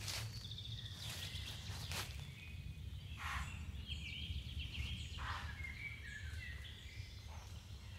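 Woodland birds chirping and trilling in short phrases, with several brief rustles or crackles of leaves, over a steady low rumble.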